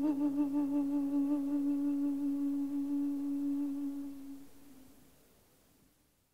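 Background music ending on one long held note that wavers slightly at first, then dies away to silence near the end.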